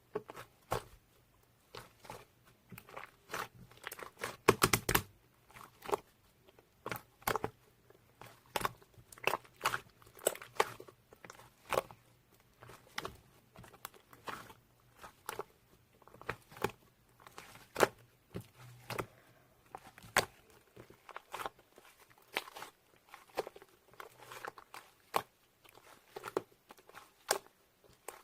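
Mixed slime being squished and pressed by hand, giving irregular sharp clicks and pops, a few a second.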